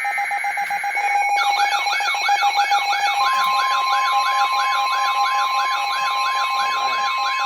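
NOAA Weather Radio alert going off for a special marine warning: rapid electronic pulsing for about the first second, then a warbling electronic siren alarm sweeping up and down about three times a second, joined about three seconds in by the steady warning alarm tone.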